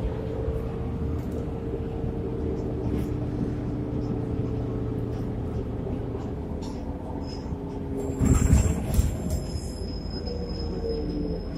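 Solaris city bus heard from inside the cabin while riding: a steady drivetrain hum with a low whine over road rumble. About eight seconds in comes a louder noisy burst, followed by thin, high, steady tones.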